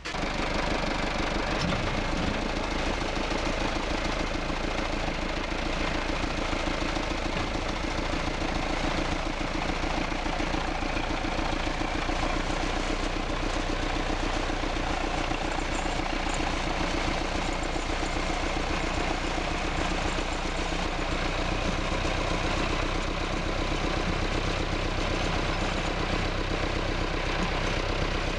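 An engine running steadily at idle, with a fast, even firing pulse.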